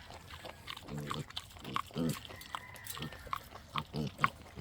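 Pigs giving several short grunts while going after eggs, with small clicks of eating in between.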